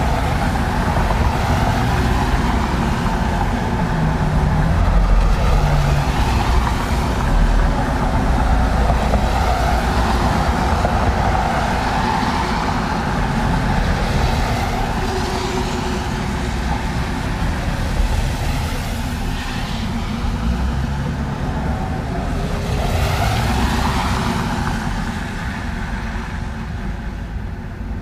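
Road traffic on a wet road: cars passing with tyre hiss over a steady low rumble, the hiss swelling and fading as each vehicle goes by, loudest for one pass late on.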